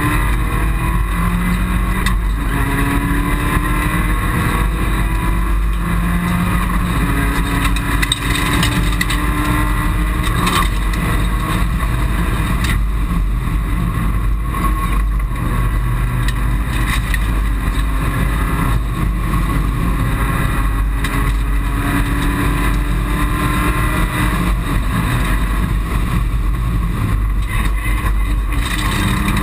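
Mitsubishi Colt rally car's engine heard from inside the cabin under hard acceleration, its pitch repeatedly climbing and then dropping back as it shifts, over loud, steady road and tyre noise.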